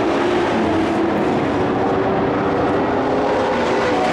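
Racing truck engines running at speed on a dirt oval, a steady drone whose pitch wavers slightly.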